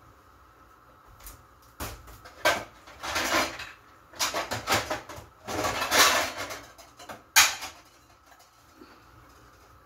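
Metal pots, pans and lids clattering as someone rummages in a low kitchen cupboard, with separate knocks of the cupboard door or pans. Three bouts of rattling in the middle, and one sharp knock near the end.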